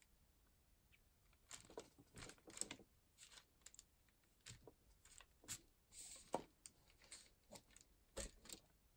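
Faint, irregular light taps and paper rustles from a clear acrylic stamp block being pressed onto rice paper and dabbed on an ink pad.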